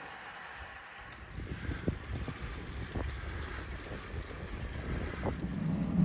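Wind buffeting the microphone while cycling: a low rumble that builds about a second in, with irregular thumps.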